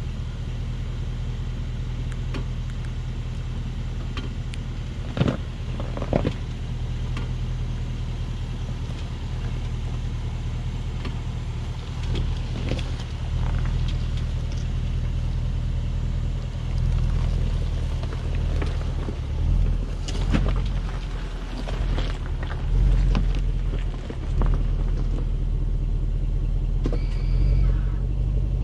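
Range Rover Sport's engine running at low speed as the SUV crawls over loose rock, with the tyres crunching and knocking on stones several times. The engine gets louder in the second half as the vehicle draws alongside.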